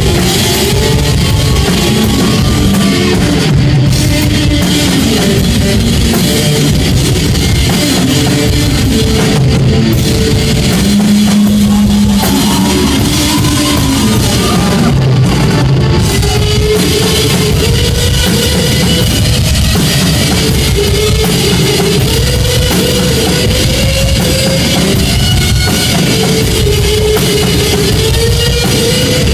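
Live rock band playing loudly: electric guitar and drum kit, with guitar notes sliding and bending up and down over the drums.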